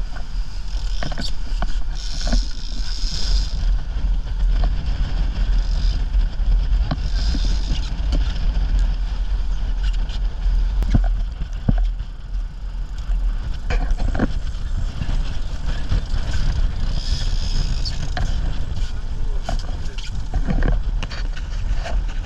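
A small sport-fishing boat under way: a steady low engine rumble and the rush of its wake water, with scattered knocks on the deck and gear.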